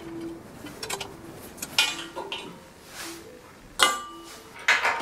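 Metal clinks and knocks as a steel lathe tool rest is handled and fitted onto its post. The loudest is a ringing clank about four seconds in.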